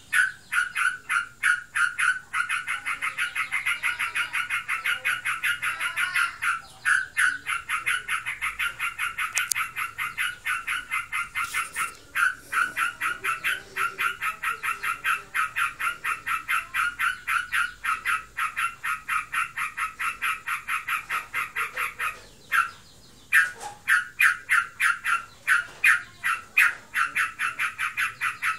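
Yellow-vented bulbul (trucukan) calling nonstop, a rapid run of repeated notes at about four a second, broken by a few brief pauses. The owner is unsure whether this nonstop calling means the bird is in breeding condition or simply in full song.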